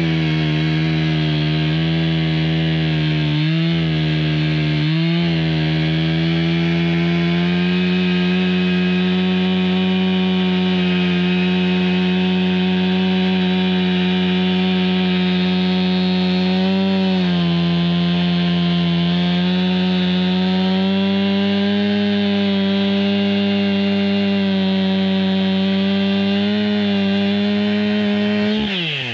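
Stihl chainsaw cutting through a thick log, its engine held high and steady under load. The pitch dips briefly as the chain bogs in the cut, twice a few seconds in and once midway. Near the end the throttle is let off and the engine falls away.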